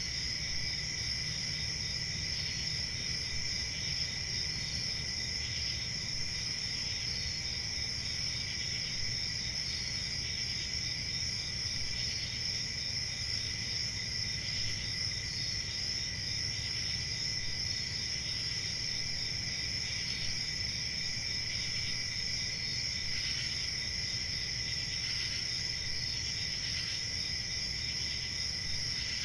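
Chorus of crickets trilling steadily at two pitches, one high and one lower, with a faint extra chirp about every two and a half seconds over a low background rumble.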